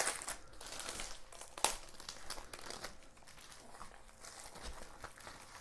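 Crinkling and rustling of a diamond painting kit's packaging being handled, with a sharper crackle about a second and a half in.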